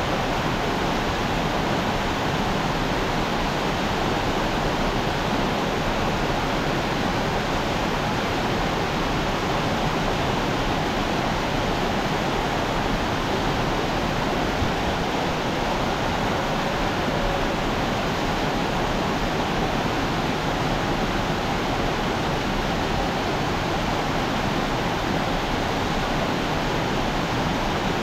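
Steady rushing of a rocky mountain stream and small waterfalls cascading over boulders.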